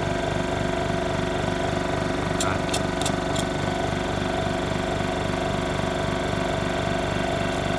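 Hitachi high-pressure air compressor running just after start-up, its motor and pump pulsing fast and evenly as it fills the tank. A few light clicks come about two and a half to three and a half seconds in.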